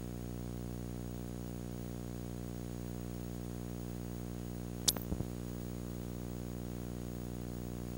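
A steady electrical buzz with many evenly spaced overtones, unchanging throughout. About five seconds in there is a brief crackle of a few sharp clicks.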